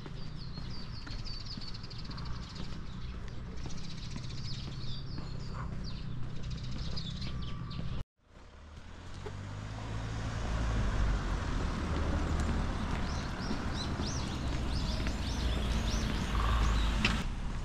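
Small songbirds chirping over a steady low outdoor rumble. The sound cuts out abruptly about eight seconds in, then returns with the rumble louder and the birds still chirping.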